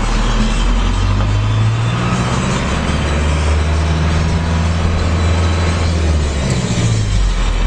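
A car's engine and road noise heard from inside the moving vehicle, a steady hum with hiss. The engine note shifts about a second in and again near the end.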